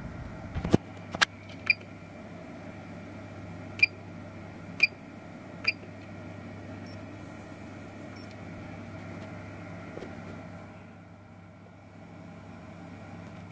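Two clicks, then four short electronic beeps from a DC electronic load's keypad as its buttons are pressed to change the load current. A high, thin tone sounds for about a second in the middle, over a steady low hum.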